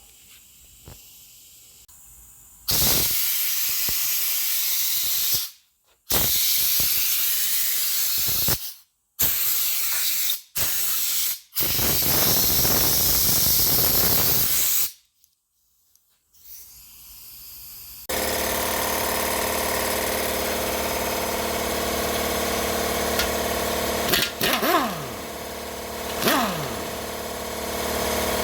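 Compressed-air blow gun blasting dust off a bare engine block: loud hissing in several stretches that start and stop abruptly. From about two-thirds of the way through, a steady machine hum with several fixed tones takes over, with two falling whines near the end.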